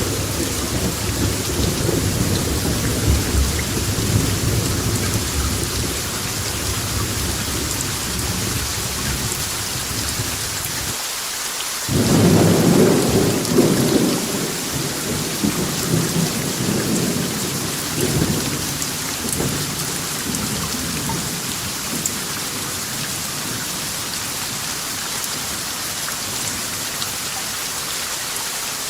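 Steady rain with rolling thunder. The thunder rumbles through the first third, then a loud new peal breaks in about halfway and rolls away over several seconds, leaving only the hiss of the rain.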